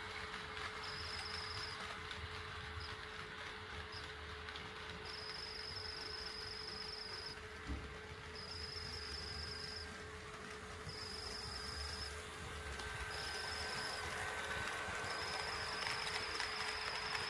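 HO-scale model train running on the layout: a low, uneven rumble of wheels on the track under a steady motor hum. A high-pitched whine comes and goes in stretches of one to two seconds.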